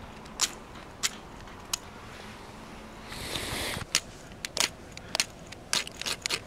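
Ferro rod scraped with a steel striker, throwing sparks onto wood-shaving tinder: a series of short, sharp scrapes, about one a second at first and quicker near the end, with one longer scrape about three seconds in.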